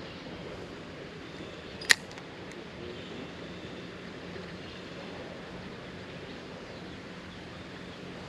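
One sharp click from a spinning fishing reel about two seconds in, over steady outdoor background noise.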